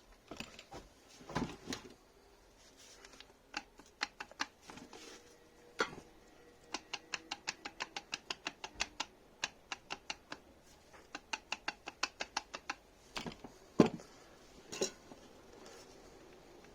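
A series of sharp clicks and light knocks, mostly in quick runs of about six a second, with one louder knock near the end.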